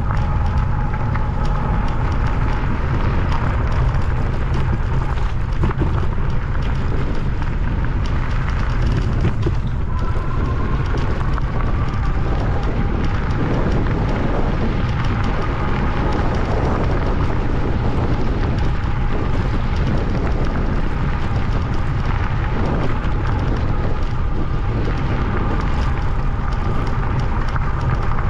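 Wind buffeting the microphone of a moving electric bike, a loud steady rumble, with a faint high whine from the bike's motor that rises in pitch about ten seconds in.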